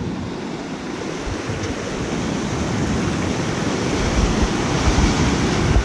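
Small ocean waves breaking and washing in shallow surf, growing louder toward the end as a wave breaks close by.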